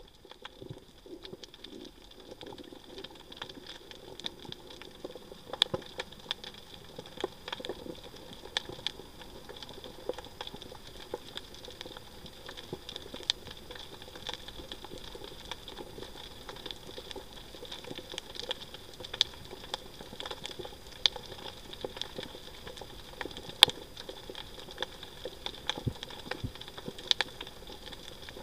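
Underwater reef ambience: a dense, irregular crackle of small clicks and pops, with a faint steady whine beneath.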